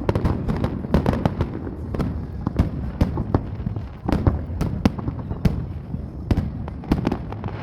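Fireworks display: a rapid, irregular run of bangs and crackles, several a second, over a steady low rumble from the launches and bursts.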